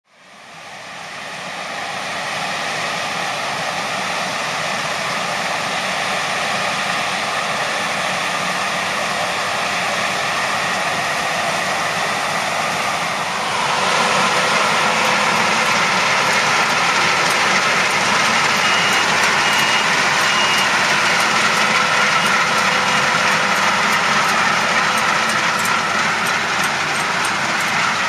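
Claas Lexion 750 combine harvester running, its Caterpillar C13 six-cylinder diesel and threshing machinery making a steady, dense mechanical noise. It fades in over the first two seconds and grows louder about halfway through.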